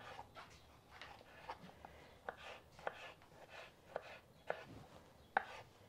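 Kitchen knife chopping tomatoes on a wooden cutting board: faint, uneven knocks of the blade striking the board, about two a second.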